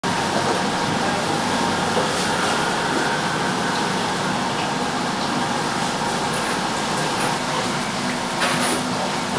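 Steady machine hum in a tofu workshop, with a few light knocks near the end as a concrete block weight is set onto the stacked wooden tofu press boxes.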